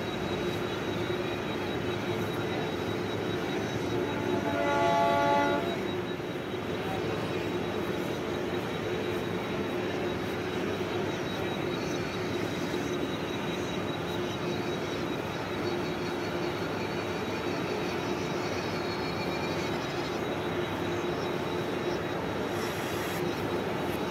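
Mumbai suburban EMU electric train at a platform, its equipment running with a steady hum and hiss, and a short horn blast about five seconds in. Near the end the train starts to move off.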